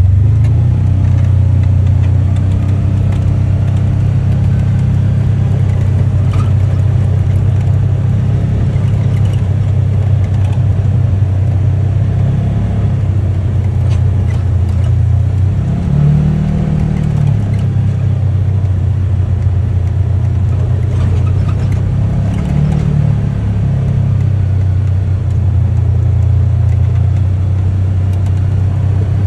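UTV engine running steadily under way, its low drone rising briefly in pitch twice, about halfway through and again about three quarters through.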